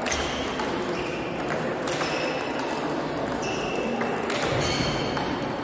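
Table tennis rally: the ball clicks off the rackets and the table roughly once a second, several hits leaving a short, high ringing ping.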